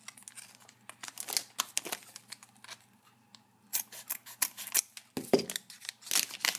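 Scissors snipping through the wrapper of a trading-card booster pack: a run of sharp, irregular snips with wrapper rustle, busiest in the second half.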